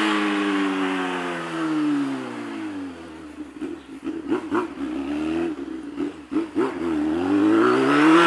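Honda Hornet's inline-four engine through a straight 'boro' exhaust diffuser, its note dropping and fading as the bike slows away, with a few short crackles while it is low, then climbing again and getting louder as it accelerates back near the end.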